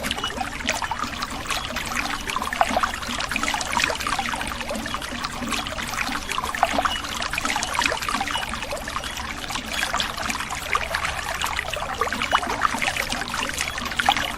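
A small stream of water trickling and splashing without a break, a dense patter of little drops.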